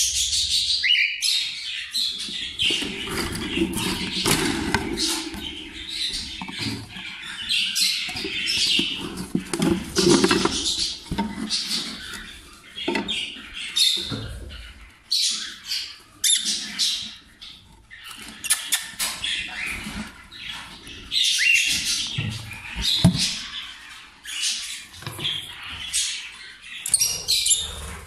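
Many caged parrots chirping and squawking over one another, with occasional knocks and rattles.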